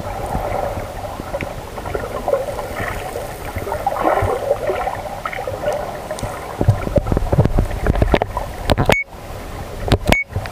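Muffled sloshing and gurgling of shallow seawater heard through an underwater camera, with a low rumble underneath. In the last few seconds comes a run of sharp knocks and thumps, and the sound cuts out briefly twice near the end.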